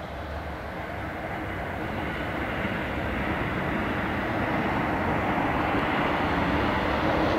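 Jet engine noise of an Airbus A300 freighter on its landing rollout: a steady roar that grows louder throughout.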